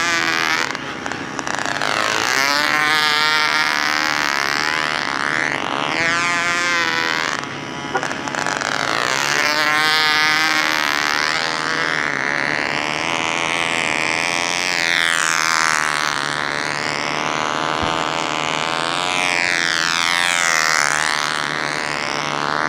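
McCoy .29 Red Head glow engine on a control-line model plane running flat out in flight. Its buzz rises and falls in pitch every few seconds as the plane circles and manoeuvres.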